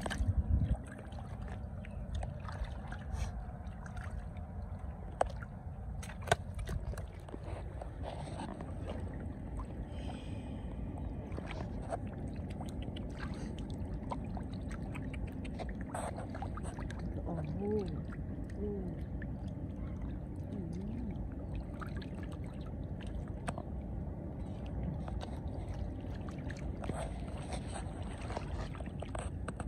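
Hands and catfish splashing and sloshing in shallow muddy water, with scattered sharp splashes, the loudest cluster at the very start.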